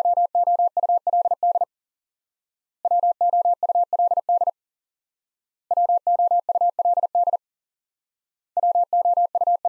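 Morse code for the word "would" sent at 40 words per minute as a single steady, mid-pitched tone keyed rapidly on and off. Three complete sendings come about a second apart, and a fourth begins near the end.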